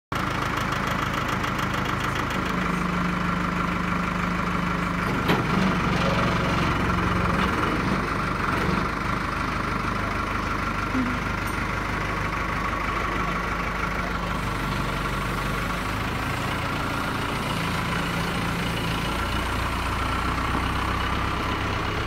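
Case 570LXT loader tractor's diesel engine running steadily, with small changes in engine speed, as the machine moves off.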